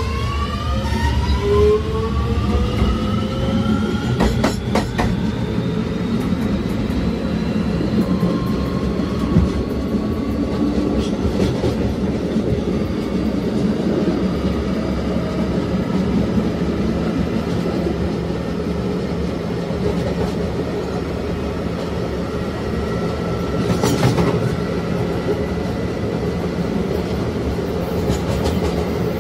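Kawasaki-built NYC subway car with Alstom OptONIX IGBT-VVVF traction inverters accelerating: several inverter whines climb in pitch over the first few seconds. Then it runs on with a steady rumble of wheels on rail, clacks over rail joints about four seconds in and again near the end, and a steady motor tone that comes back for a few seconds later on.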